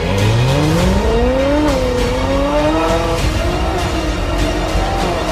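Ferrari 458 Speciale's naturally aspirated V8 with an Fi EXHAUST valvetronic muffler, revving up hard: the pitch climbs steeply, dips briefly after about a second and a half, then keeps rising more slowly.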